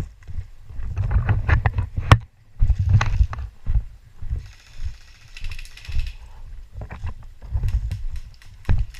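Body-worn camera picking up a player on the move: uneven footsteps, thumps and scuffs of kit rubbing against the camera, with sharp clicks and knocks, and a short burst of hissy rapid crackling about five seconds in.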